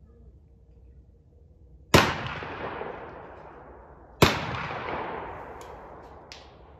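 Two gunshots about two and a quarter seconds apart, each a sharp crack followed by a long echoing tail that dies away over about two seconds.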